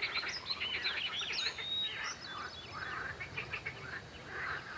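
Several birds singing at once: many short overlapping chirps and whistled notes.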